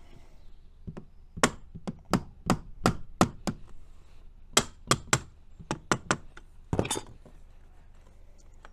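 Small soft-faced glazing hammer tapping an aluminium window's glazing bead so it clips in at the back: a run of about fifteen sharp taps, roughly three a second, with a short pause midway.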